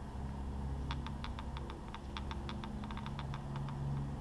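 Paint-loaded sponge dabbed rapidly against a rifle's painted surface, making quick irregular tapping clicks, several a second, starting about a second in. A steady low hum runs underneath.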